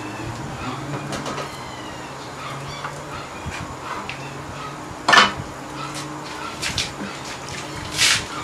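Handling clatter of plastic printer parts and a large plastic basin on a wooden table, with one sharp knock about five seconds in. Near the end, a short splash of water as hands go into the basin.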